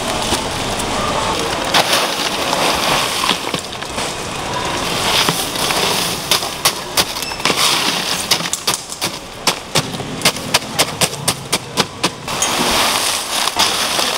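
Crushed ice being pushed and spread across a stainless steel display tray with a plastic cutting board: crunching and scraping of ice, with a quick run of sharp knocks and clicks in the middle.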